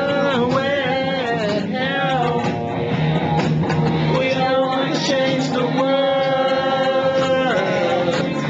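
Rock song playing: a voice sings a melody with long held notes over guitar accompaniment, one note held for over a second near the end.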